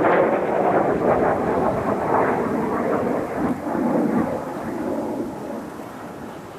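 Jet roar from Blue Impulse Kawasaki T-4 jet trainers passing overhead, a loud rushing rumble that fades away over the last couple of seconds.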